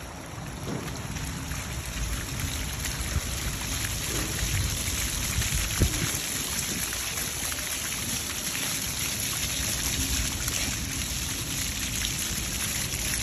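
Splash pad ground jets spraying water that patters onto wet paving stones, a steady hiss.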